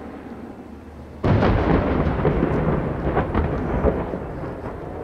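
Opening of a fireworks show: a sudden loud thunder-like rumble with crackling that starts about a second in, stays strong for a few seconds and slowly dies away.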